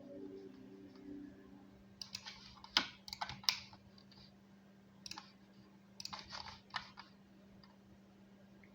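Irregular clicks and taps in small clusters over a faint steady hum, after a few low music notes fade out near the start.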